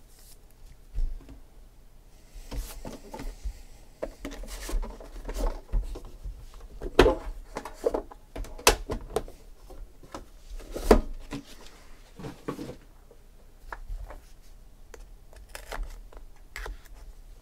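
Handling sounds of a trading-card box being opened: clicks, taps and rustles as a red tin with a hinged metal lid is opened and the wrapped card pack inside is lifted out and handled, with a few sharper knocks in the middle.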